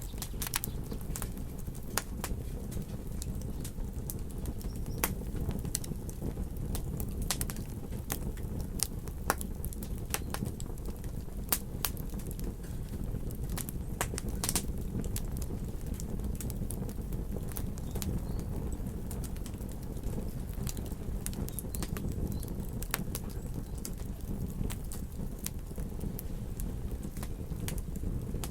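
Campfire burning, with irregular sharp crackles and pops over a steady low rumble of flame.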